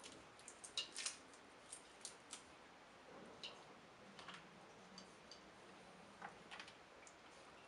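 Snow crab leg shells being cracked and picked apart by hand: faint, irregular small cracks and clicks.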